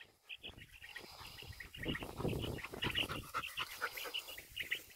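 Hunting dog panting as it moves through dry grass, with faint bird chirps throughout.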